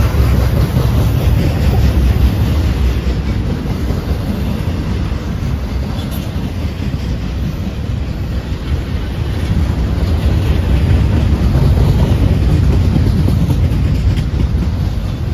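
Double-stack intermodal freight train rolling past: a steady, loud rumble of steel wheels on the rails, with clickety-clack from the passing cars.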